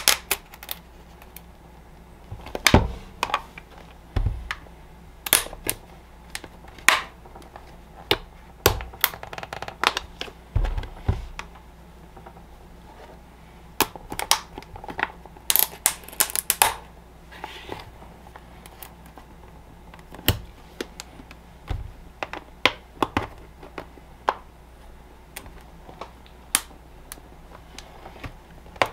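Plastic case of a Power Queen 10Ah LiFePO4 battery being pried open: irregular sharp clicks and snaps as the lid seam gives, with a few duller knocks among them. The lid was not sealed well and gives easily.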